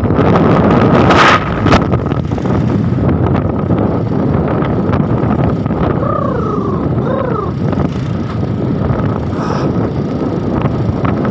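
Wind buffeting a phone microphone over street traffic noise, with a sharp gust about a second in. Two short rising-then-falling tones sound about six and seven seconds in.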